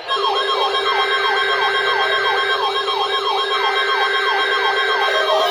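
Electronic siren tone sweeping downward over and over, about two and a half sweeps a second, layered over several steady held tones.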